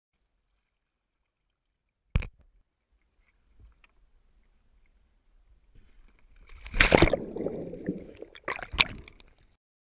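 A sharp knock about two seconds in, then water splashing and bubbling as the camera goes under the sea beside a kayak, loudest about seven seconds in with more splashes near the end before it cuts off.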